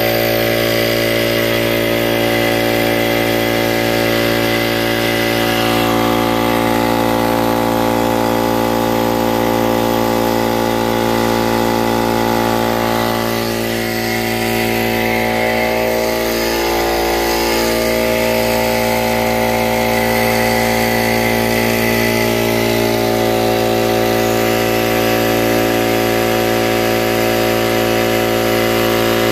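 Harbor Freight 21-gallon, 2.5 HP oil-lubricated air compressor running steadily with no change in pitch or level. It is on its 30-minute break-in run with air blowing freely out of the open coupler, so the pump runs unloaded.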